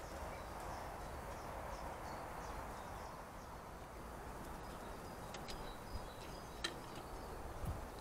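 Outdoor garden ambience: a steady background hiss with faint, distant bird chirps and a couple of sharp clicks, plus a brief low thump near the end.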